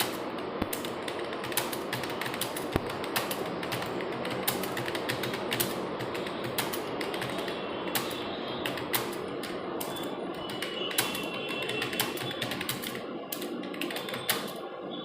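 Fast, continuous typing on a computer keyboard, with a dense, steady clatter of key clicks, as in a timed typing test.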